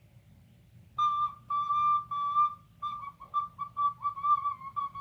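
Recorder played shrilly on one high note, in a run of short toots and held notes starting about a second in, with a slight wobble in pitch. It is played horribly on purpose, as a prank.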